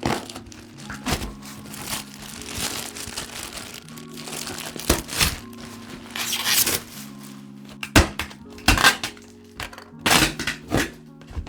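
Packaging crinkling, rustling and knocking in irregular handling noises as a keyboard is unboxed, with several sharper knocks near the end. Background music runs underneath.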